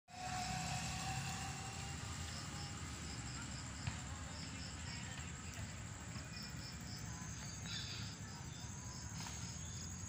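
Insects calling at dusk: a regular high chirp repeating about three times a second over a steady high trill, with a low background rumble underneath.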